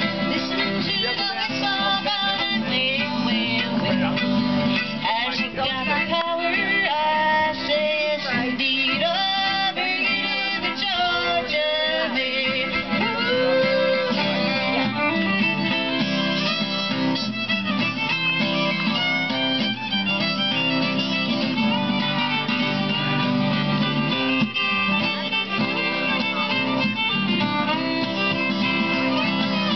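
Fiddle playing an instrumental bluegrass melody with slides between notes, over a steady guitar accompaniment.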